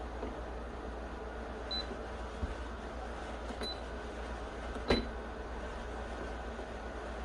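GE drip coffee maker's control panel giving three short, high electronic beeps as its buttons are pressed, the last with a sharp click. A steady low hum runs underneath.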